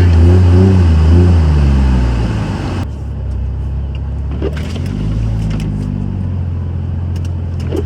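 Dodge pickup's Cummins turbo-diesel engine running hard, its note climbing and dipping. About three seconds in, the loud rushing noise drops off suddenly and the engine settles to a quieter, steady run.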